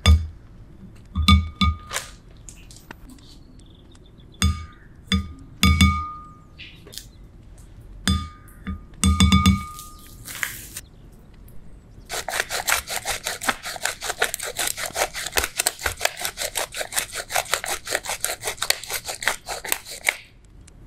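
A wooden spoon knocks against the rim of a glass bowl about eight times, each knock a short ringing clink, as spoonfuls of spice powder are tapped off onto raw chicken. In the last third, a pepper mill grinds black pepper with rapid, even crackling clicks, about five a second, for some eight seconds.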